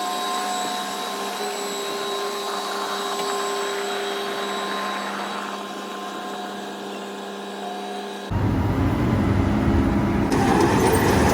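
Steady mechanical whine with several steady tones, then, after an abrupt cut about eight seconds in, a louder heavy engine running with a deep rumble.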